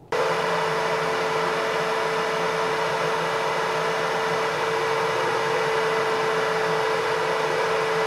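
Bosch electric drill running steadily with a steady high whine, a small grinding bit in its chuck working the inside of a steel spanner's ring end.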